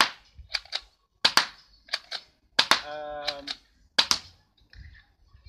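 Spring-powered airsoft mini Uzi with its suppressor fitted, fired one shot at a time: a run of sharp clicks, mostly in close pairs, about six at uneven spacing.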